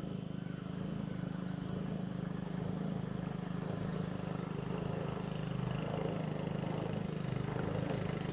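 A small engine drones steadily at an even speed, low and unchanging throughout.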